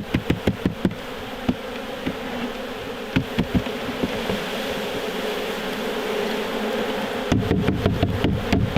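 Swarm of honey bees buzzing steadily. A run of sharp knocks comes in the first second and a few more about three seconds in; near the end there is a quick series of clicks over a low rumble.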